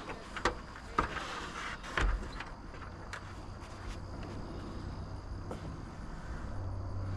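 Scattered wooden knocks and one heavier thump, about two seconds in, as framing lumber is handled and set into place, over a faint steady insect buzz; a low steady hum grows stronger near the end.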